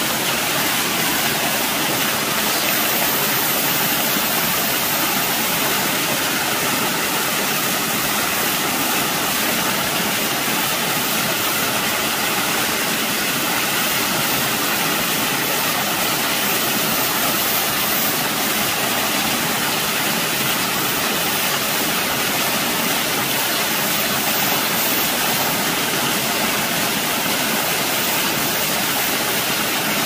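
Running water rushing steadily and evenly, the sound of a stream or small waterfall.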